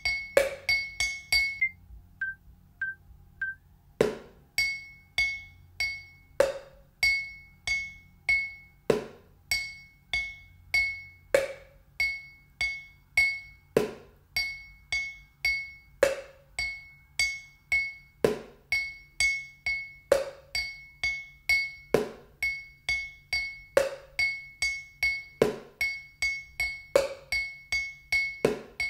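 Kitchen-object drumming: wooden sticks striking a drinking glass, which rings at one high pitch, and duller plastic and lidded containers, in a repeating rhythm. Three short beeps count in, then the pattern starts about four seconds in and gradually speeds up.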